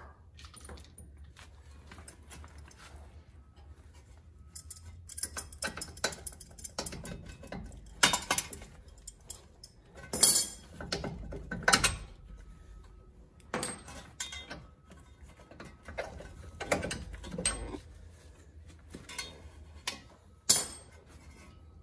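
Irregular metallic clinks, clicks and a few short scrapes of hand tools and loose steel hardware being handled at a car's front steering knuckle and hub.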